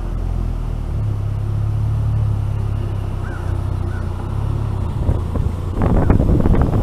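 Polaris Slingshot's engine running as it pulls away, its note stepping up about a second in. From about five seconds in, wind buffets the microphone as it gathers speed.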